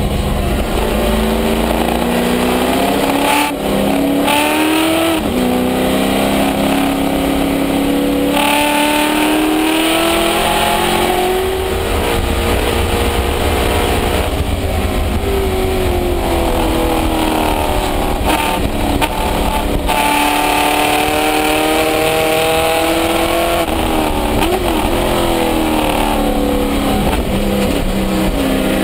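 Race car engine heard from inside the cockpit at full racing pace, its note climbing through each gear and dropping at the gear changes, with one spell where the revs fall away before climbing again.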